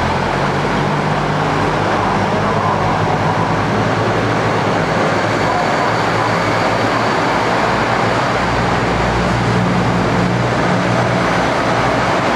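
KiHa 85 series diesel railcars pulling out along the platform, their Cummins diesel engines running under power with a steady low engine note over the rumble of wheels on the rails.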